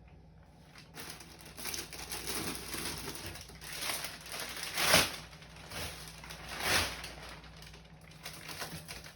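Plastic crinkling and rustling with scattered knocks from containers and items being handled while a fridge is cleared out. The loudest knocks come about five seconds and about seven seconds in.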